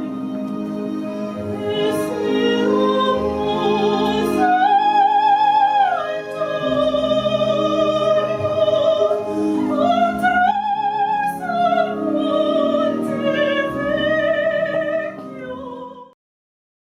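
Operatic singing: a solo voice with strong vibrato holding long notes over piano accompaniment, cutting off suddenly near the end.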